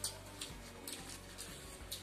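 A handful of short, sharp clicks and crinkles from eating egg rolls: chewing and paper wrappers being peeled back, over faint background music.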